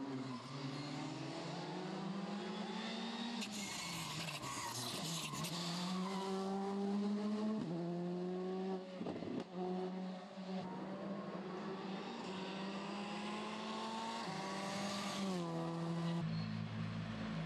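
Škoda Fabia rally car driven hard through a bend, its engine note repeatedly climbing and then dropping with quick gear changes and lift-offs. A burst of high hissing noise comes about four seconds in. Near the end the sound switches to a steadier, lower engine note.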